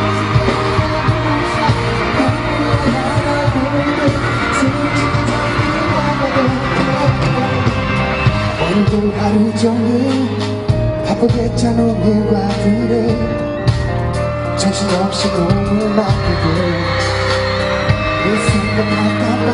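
Pop song performed live at a concert: a steady beat with a male singer's voice.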